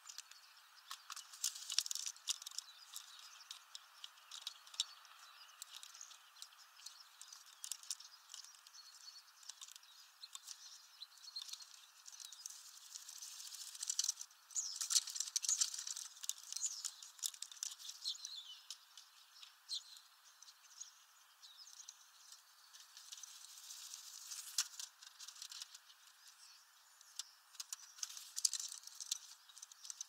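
European starlings feeding at a bird feeder: frequent light taps and scratches of bills and feet on the feeder, with bursts of wing flutter and soft high chatter, busiest about halfway through and again near the end.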